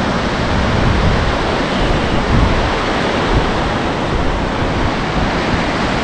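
Steady rush of swollen, turbulent river water pouring through a barrage's open gates, with strong wind buffeting the microphone.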